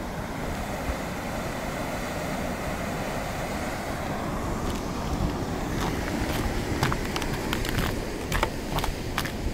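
Steady rushing of a large waterfall, with a scatter of sharp clicks over it in the second half.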